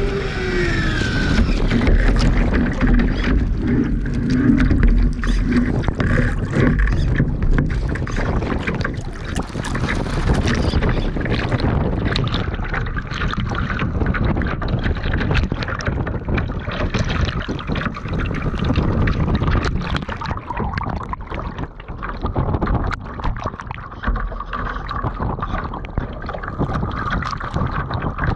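Water rushing and splashing along the hull of a radio-controlled sailing yacht heeled hard under sail, heard close up from its deck, with wind buffeting the microphone.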